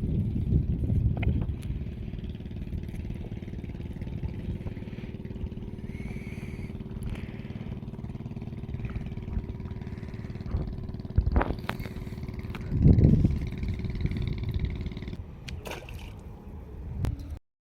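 An engine running steadily, with a few knocks over it. The sound cuts out abruptly near the end.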